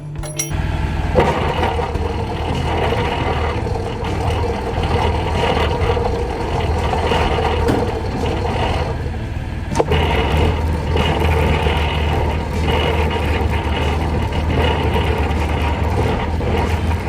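A vehicle engine running steadily with road noise while driving, with a brief break about ten seconds in.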